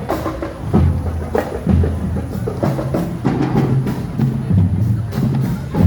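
Marching band drumline playing: sharp snare-type hits over short low drum strokes at several pitches, in a busy, steady rhythm.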